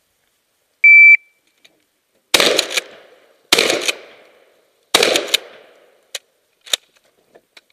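A shot timer beeps once, then a shotgun fires three shots about a second and a half apart, each with a short echoing tail, followed by a few lighter clicks.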